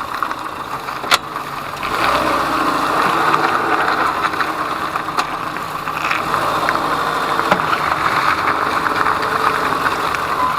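Peugeot 207 moving slowly with its engine running, and a single sharp knock from the suspension about a second in, followed later by a couple of fainter clicks. These are recurring single knocks when moving off after a change of direction; the owner suspects a hub bearing, CV joint, strut mount or shock absorber.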